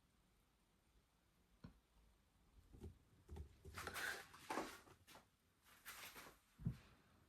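Faint handling noises: a light click, then a few seconds of soft rustling and scraping, ending in a short low thump near the end.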